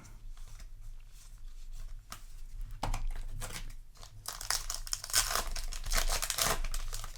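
Yu-Gi-Oh! booster pack's foil wrapper crinkling and being torn open by hand, with the crackling thickest in the second half.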